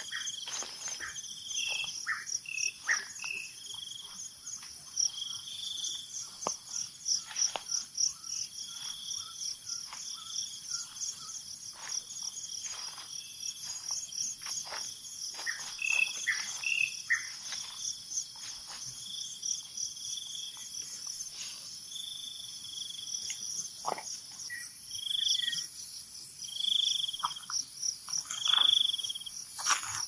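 Tropical forest insects chirring in a fast pulsing trill over a steady high whine, with short high calls repeated every second or two. Footsteps crunch on dry leaf litter throughout.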